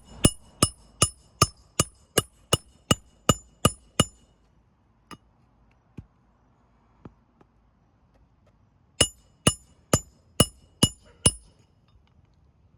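A hammer driving nails into roof shingles in two runs of quick strokes, about three a second, each with a metallic ring. There are about a dozen strikes at first, a few light taps, then six more near the end.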